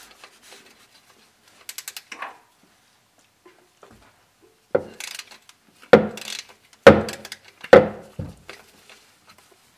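3/8-inch ratchet with a short extension clicking as it loosens the drain plug of a Dana 44 axle. A few quick light clicks come about two seconds in, then five loud, sharp clacks roughly a second apart in the second half.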